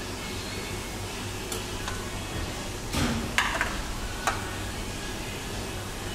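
Metal serving tongs and spoons clinking a handful of times against stainless-steel food trays and a metal plate while tacos are filled, the loudest clinks about three to four and a half seconds in, over a steady low hum.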